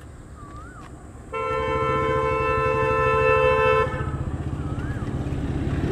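A vehicle horn sounds one steady note for about two and a half seconds, starting about a second in, over a vehicle engine running steadily.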